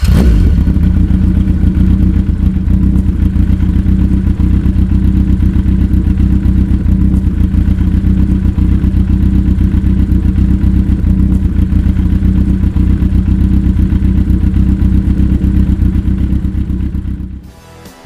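Kawasaki Z 1000 inline-four motorcycle engine running at a steady, unchanging engine speed, fading out near the end.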